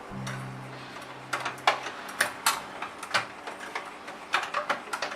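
Irregular clicks and light knocks of metal door-lock parts being handled and fitted against a door, as the lock's plate is put on. A low steady hum fades out about two seconds in.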